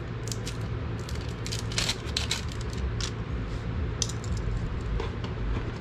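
Crinkling and clicking of a plastic wrapper as a new lawn-mower oil filter is unwrapped by hand, in scattered short crackles over a steady low hum.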